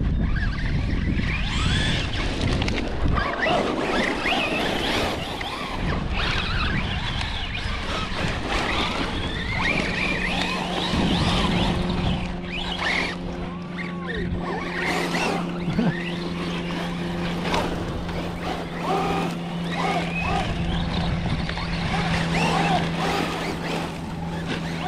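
Electric motors of radio-controlled trucks whining as they rev up and down in quick bursts of throttle. Wind on the microphone at first, and a steady low hum comes in about halfway through.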